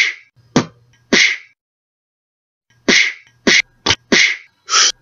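Cartoon fight sound effects: a quick series of short, sharp punch and kick hits. There are three in the first second and a half, then about five more in quick succession from about three seconds in.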